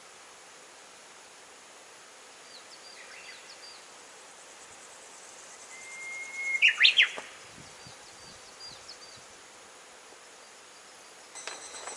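Wild birds calling over a steady outdoor hiss: short high chirps, and about halfway through a louder song of one held whistle followed by a few quick rising notes. A high, pulsing buzz starts near the end.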